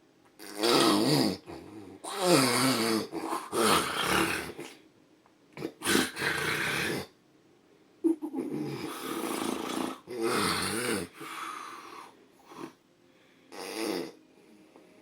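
A man snoring heavily in his sleep: a string of loud, irregular snores, each about a second long, with a wavering pitch. There is a short break about seven seconds in, and a couple of shorter snorts near the end.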